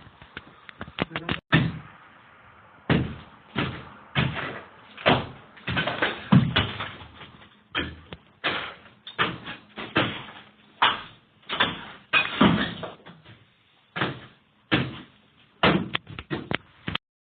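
A series of irregular sharp knocks and thumps, about one to two a second, each dying away quickly.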